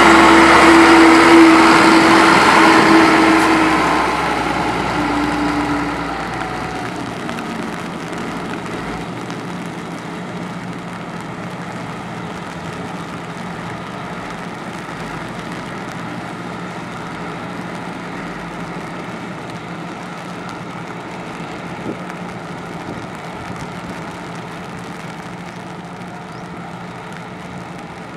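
Diesel engine of a heavy road-construction machine, loud and close for the first few seconds, then fading over several seconds to a steady, more distant engine hum.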